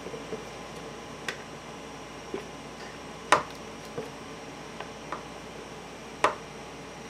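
Sharp, scattered plastic taps and clicks as a container is tapped and scraped out with a silicone spatula over a plastic mixing bowl, over a faint steady hum. The two loudest taps come about a third of the way in and near the end.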